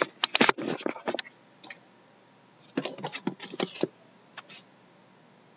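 Hands handling and turning a shrink-wrapped cardboard box of trading cards: quick scratchy rustles and taps in two bursts, one in the first second and another about three seconds in, then a last brief scrape.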